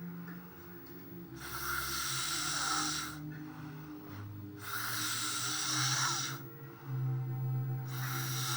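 A sleeper snoring in slow, even breaths: three hissing breaths of nearly two seconds each, about every three and a half seconds, each with a thin whistle in it.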